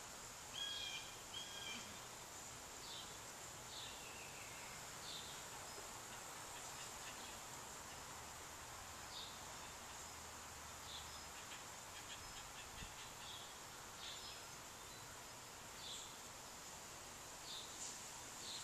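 Faint outdoor ambience: small birds giving short, scattered chirps, the loudest a pair about a second in, over a steady high-pitched insect drone.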